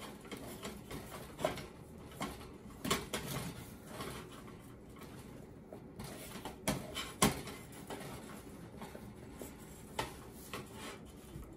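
A spoon stirs and folds thick cauliflower fufu dough in a stainless steel saucepan, giving soft, irregular knocks and scrapes against the pot. The loudest knock comes about seven seconds in.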